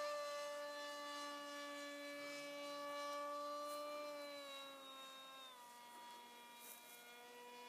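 Electric motor and propeller of a small RC foam jet flying high overhead: a thin steady whine that drops in pitch a little past the middle as the throttle comes back, and grows fainter.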